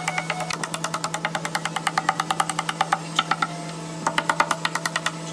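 Rapid hammer blows on hardwood, about seven a second, knocking out the strips of wood left between saw kerfs in the end of a slab. The blows pause briefly a little after three seconds in, then resume louder.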